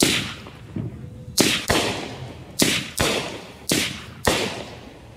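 A multi-shot consumer firework, 'Fireworks Wide Open', firing its shots. There are about seven sharp bangs over some four seconds, some in quick pairs, each trailing off into an echo.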